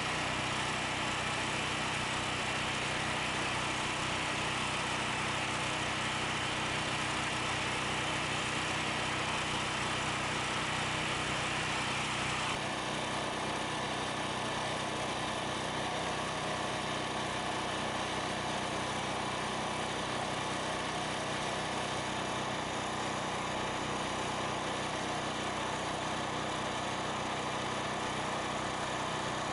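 Portable gasoline generator engine running steadily at a constant speed, with an abrupt slight change in tone about twelve seconds in.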